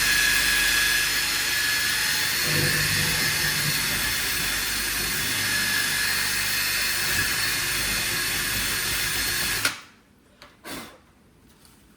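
Power drill boring a hole for a window lock bolt, its motor running steadily for nearly ten seconds and then stopping. A faint knock follows shortly after.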